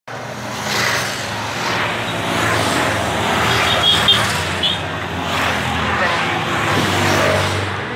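Several escort motorcycles riding past in a group, their engines running steadily, over the chatter of a roadside crowd. Brief high-pitched tones sound about halfway through.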